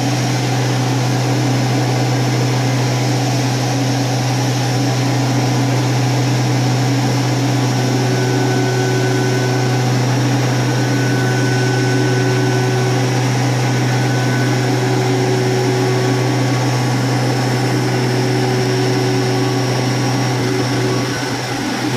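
CNC milling machine spindle running with a 6 mm solid carbide end mill cutting the workpiece under flood coolant: a steady hum with a hiss over it. A faint whine comes and goes in the middle.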